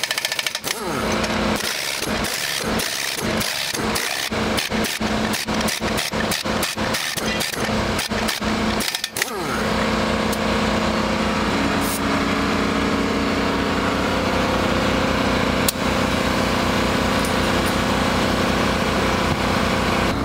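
Pneumatic impact wrench hammering in a rapid series of short bursts that come closer together, running the wheel nuts onto a truck wheel. About nine seconds in the bursts stop and a steady mechanical running sound takes over.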